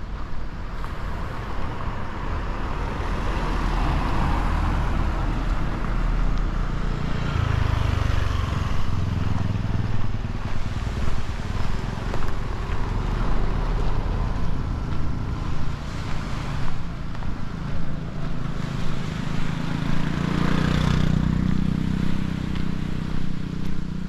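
Outdoor ambience with wind noise on the microphone and a motor engine passing by, its low rumble swelling twice.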